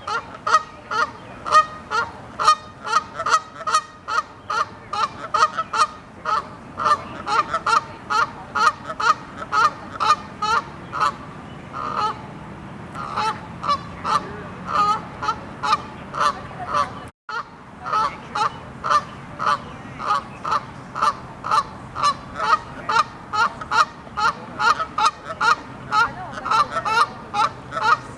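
Canada geese honking loudly, call after call at about three a second, with a very short break about two-thirds of the way through.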